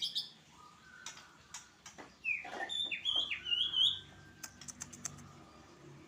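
White-rumped shama (murai batu) giving a brief burst of short, sliding chirps about two seconds in. A quick run of sharp clicks follows near the five-second mark.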